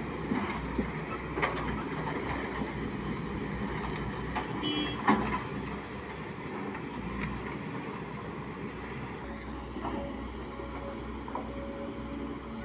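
Diesel engines of crawler excavators running under load, with a few sharp metallic clanks from buckets and steel tracks on rock, the loudest about five seconds in. A steady whine joins in over the second half.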